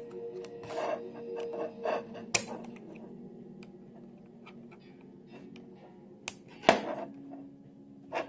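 Sharp clicks and knocks of a fixed-blade karambit knife and its hard Kydex sheath being handled, over quiet background music. The loudest is a close pair of clicks about six and a half seconds in.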